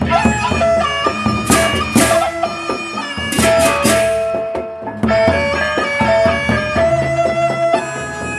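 Sasak gendang beleq ensemble playing: large barrel drums beaten with sticks, hand cymbals clashing and gongs sounding under a held, reedy melody line. The cymbal crashes are strongest between about one and a half and four seconds in, and the music dips briefly near the five-second mark before coming back in full.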